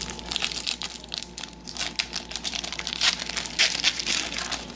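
Foil trading-card pack wrapper being crinkled and crumpled by hand, a dense, irregular crackling throughout.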